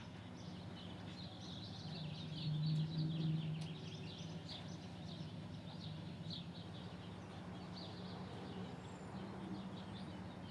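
Faint background of small birds chirping in quick, scattered calls, over a low steady hum that swells slightly a couple of seconds in.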